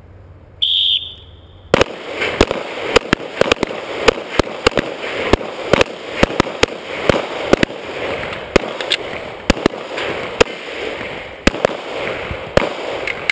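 A one-second electronic start beep, then rapid pistol fire from several shooters at once, dozens of overlapping shots knocking bowling pins off their tables.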